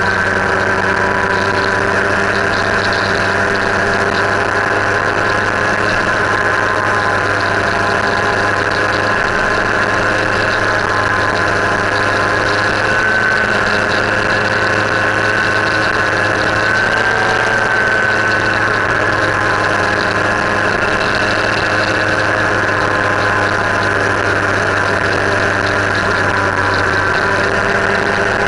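Motorcycle engine running at a steady cruising speed, heard from a camera mounted on the bike, over a haze of wind and road noise; the pitch holds nearly steady, with only slight wavers around the middle.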